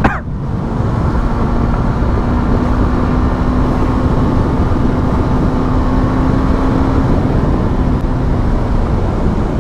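Motorcycle riding at a steady cruising speed: wind rushing over a helmet-mounted microphone, with a steady engine note underneath.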